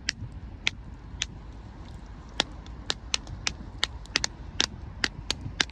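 Boiled lobster shells being cracked and snapped apart by hand: a quick, irregular run of sharp cracks and clicks, more than a dozen, over a low rumble.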